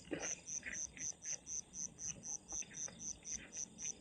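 Cricket chirping in a steady, even rhythm, about four high-pitched pulses a second, with faint brief rustles beneath it.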